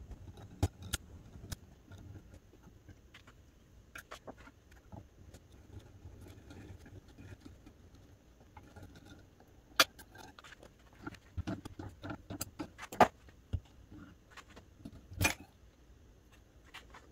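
Loop-end steel clock mainspring, the strike-side spring of a 1900 Seth Thomas mantel clock, being turned on a hand-cranked mainspring winder: irregular small metallic clicks and clinks, with a few sharper knocks about ten and thirteen seconds in and again near fifteen seconds.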